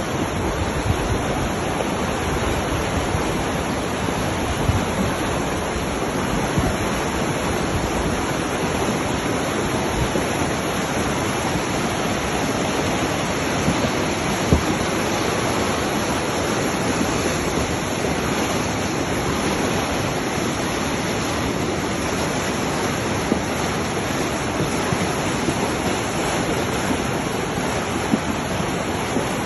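The Swat River, a fast mountain river, rushing through whitewater as a steady, loud rush of water.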